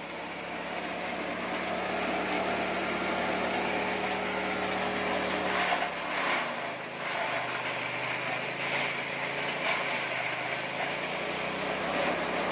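Small petrol engine driving a belt-driven chaff cutter that is chopping Napier grass: a steady engine drone under the rustle and crunch of stalks being cut. About six seconds in the engine's pitch drops as it labours under a large bundle fed into the hopper, and it picks up again near the end.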